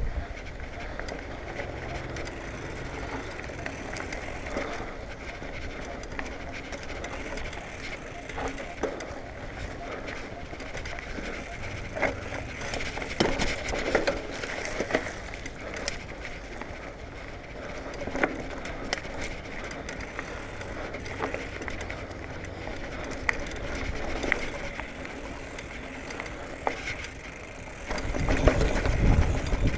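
2019 Marin Bobcat Trail 5 hardtail mountain bike riding over a dirt singletrack: tyres rolling on dirt with the drivetrain and frame rattling, the rear freewheel ticking, and sharp knocks over bumps, several in the middle. A louder low rumble comes in near the end.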